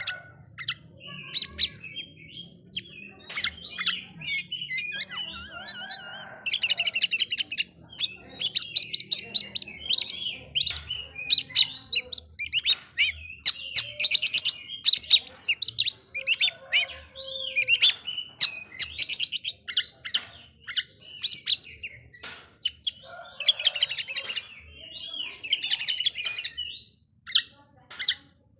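Oriental magpie-robin (kacer) singing a loud, varied song: short whistled glides mixed with repeated bursts of fast, rattling notes every couple of seconds, with a brief pause near the end.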